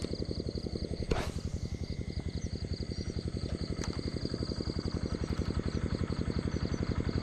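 A small engine running with a fast, even beat that grows slightly louder toward the end, with a brief knock about a second in.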